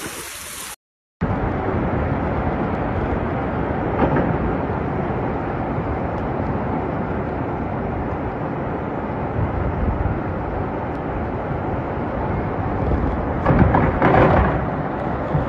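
Steady rush of a flash-flood torrent, with a louder swell near the end.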